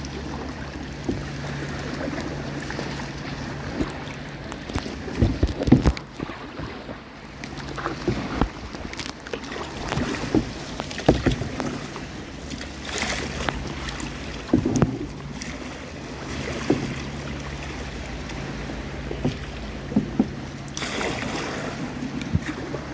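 Kayak paddle strokes splashing and dripping in calm, shallow water, at an uneven pace of a stroke every second or two, with wind on the microphone. A steady low hum runs underneath for much of the time.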